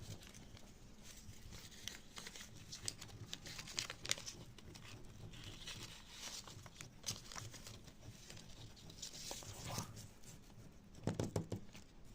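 Soft, irregular rustling and crinkling with small scratchy clicks, growing into a denser flurry about 11 seconds in.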